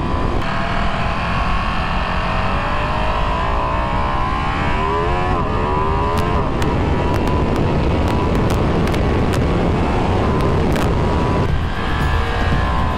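Sport motorcycle engine under way at road speed, heard from the rider's helmet camera over a steady low rush of wind. The engine note climbs in pitch as the bike accelerates over the first few seconds, then holds steady, dipping briefly near the end before picking up again.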